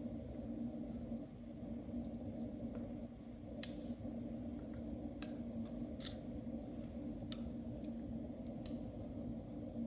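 Steady low hum of reef aquarium pumps, with a handful of short, sharp clicks scattered through the middle and latter part.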